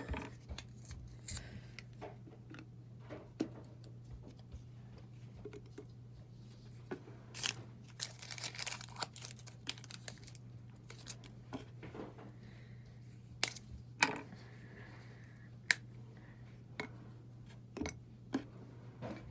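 Small handling sounds: scattered clicks and knocks, with a stretch of rustling or scraping about seven to nine seconds in, over a steady low hum.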